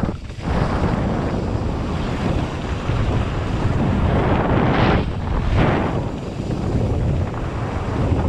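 Wind noise on the camera microphone of a mountain bike descending fast, mixed with the tyres rolling over a dirt trail. There is a louder surge about halfway through.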